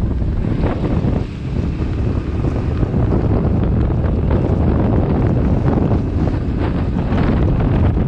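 Loud, gusty wind buffeting the microphone on a moving motorbike, a dense low rumble that dips briefly about a second in.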